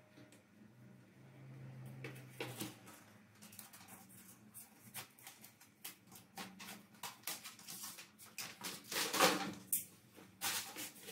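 Hands handling a cardboard mailer and a clear plastic sleeve: card and plastic sliding, rustling and crinkling, with light knocks. The noise is loudest about nine seconds in.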